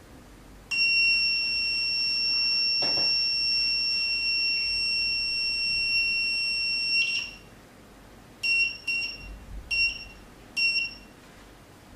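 Phonefix Shortkiller short-circuit detection box's buzzer beeping as its voltage-down button is pressed. One long steady high beep runs for about six seconds while the button is held and the voltage steps down, then four short beeps follow as the button is tapped.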